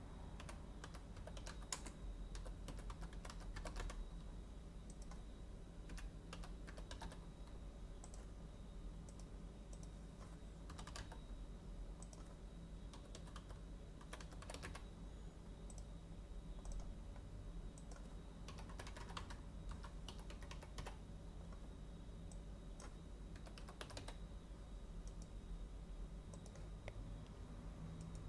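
Faint computer keyboard typing: short runs of keystrokes with pauses between them, over a steady faint low hum.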